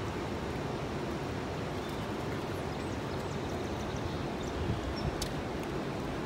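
River water rushing steadily past a rocky bank, with a few faint bird chirps.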